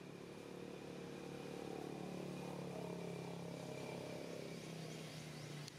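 A motor vehicle's engine running in the background, its pitch rising a little and then easing off.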